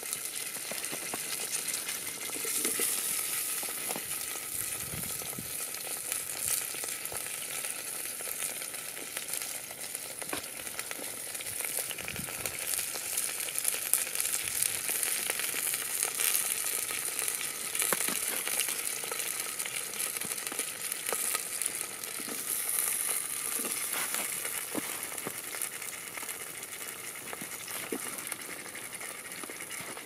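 Bratwursts, onions and peppers sizzling in a small stainless steel pot over a campfire: a steady frying hiss with scattered small crackles.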